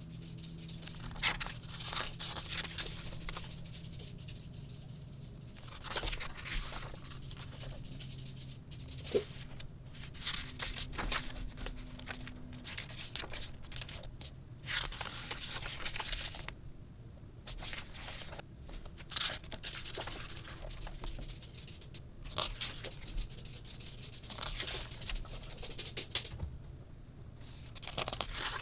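Pages of a thick hardcover photobook being turned by hand: paper swishing and rustling every few seconds, with the odd sharp tap.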